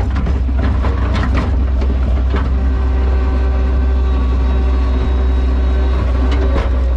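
New Holland L150 skid steer's diesel engine running steadily under load, a constant low drone with a faint steady whine. A few short knocks and clunks sound as the machine works.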